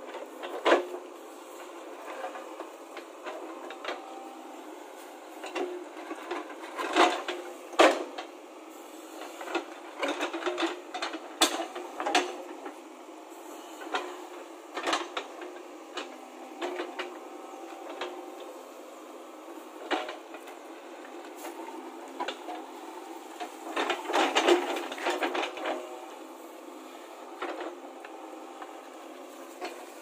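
JCB 3DX backhoe loader's diesel engine running steadily while the backhoe bucket digs and scrapes through stony soil. Repeated sharp knocks and clatters of stones against the steel bucket come in clusters, heaviest in the middle and near the end.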